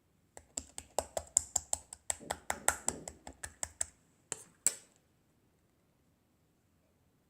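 A quick run of sharp taps, about five a second, lasting about four seconds, then stopping.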